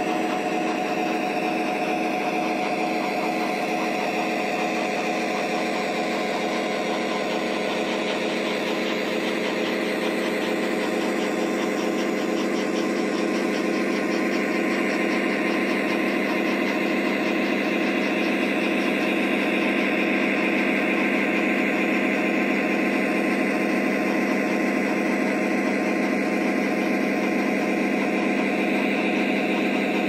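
Diesel engine sounds from the onboard speaker of a Lionel O scale SD60M model locomotive, running steadily with a hum of many pitched tones. It gets a little louder around the middle.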